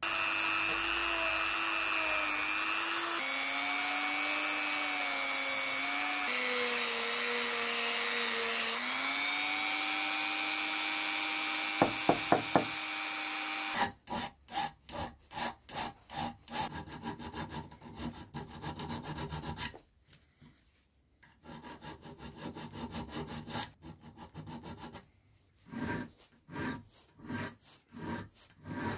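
Dremel 3000 rotary tool running with a small bit against a steel collet, its pitch shifting up and down as the load changes, with a few sharp taps just before it stops. Then a hand file is drawn across a steel sleeve clamped in a vise, rasping in repeated strokes with short pauses.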